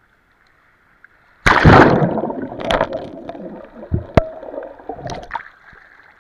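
Action camera in a waterproof housing plunging under the sea surface about a second and a half in: a loud splash, then churning, gurgling water with a couple of sharp knocks about four seconds in, fading away as the camera comes back up near the end.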